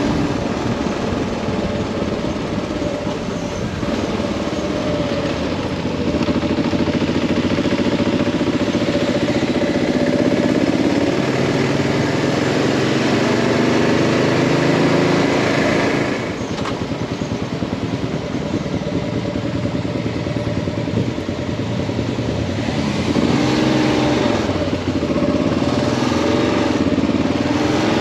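Motorcycle engine running under way, its pitch rising and falling with throttle and gear changes over a steady rush of noise. The sound changes abruptly about sixteen seconds in.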